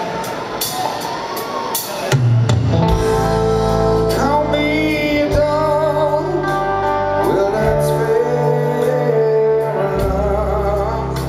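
Live rock band starting a slow song over crowd noise. About two seconds in the full band comes in, with bass and drums under held electric guitar notes that waver in pitch.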